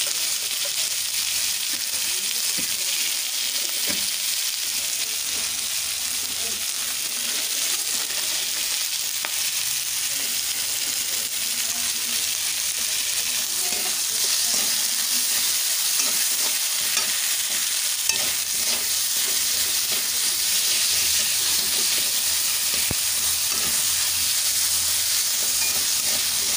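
Chopped tomatoes, onion, garlic and chillies sizzling steadily in hot oil in a kadai, stirred with a steel spatula that scrapes and taps the pan now and then. The tomatoes have just been salted to soften them as the masala fries.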